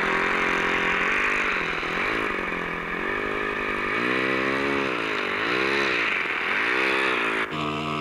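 Small model-airplane engine running, its pitch repeatedly dipping and rising again as the throttle is worked. Near the end the sound changes abruptly to a steady, even engine note.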